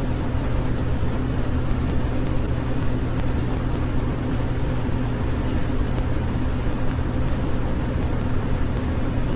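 Steady low hum with a hiss over it, with no budgie calls.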